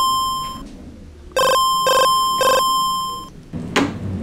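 Cell phone alert tone with a bell-like ring: one strike, then three quick strikes that ring on. A short sharp sound near the end as the phone is tossed onto the table.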